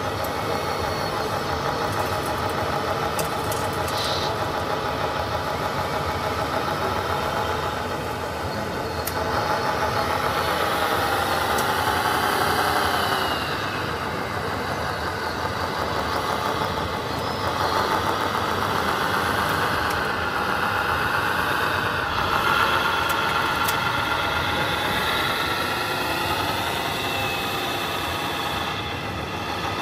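Radio-controlled model trucks running, with a mechanical whine from their motors and gearing that slowly rises and falls in pitch.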